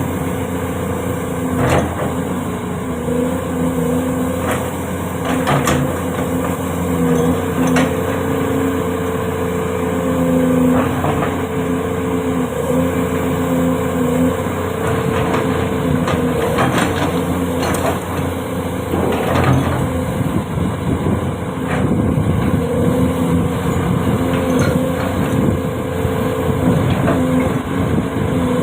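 Diesel engine of a Hyundai 450 crawler excavator running, a steady drone that shifts in pitch now and then, with scattered knocks and clanks.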